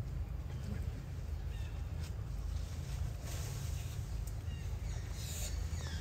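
Outdoor ambience: a steady low rumble with a few faint, short high-pitched animal calls, more of them near the end.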